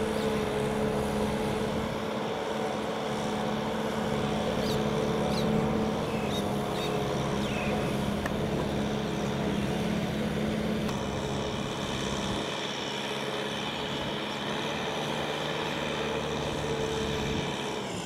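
Kubota M6040SU tractor's diesel engine running at a steady speed under load, pulling a disc plough through wet paddy mud.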